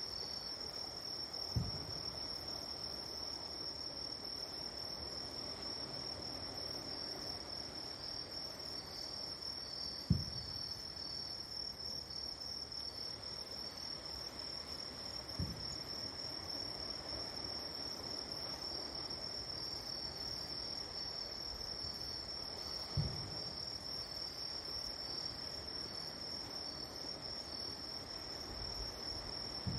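Insects trilling steadily in a high, even band, with the low, muffled booms of distant fireworks going off every several seconds, the one near the middle the loudest.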